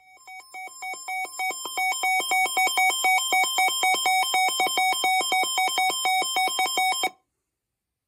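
Electronic emergency alert tone before a broadcast warning: a buzzy synthesized tone rapidly alternating between two pitches. It fades in over about two seconds and cuts off suddenly about seven seconds in.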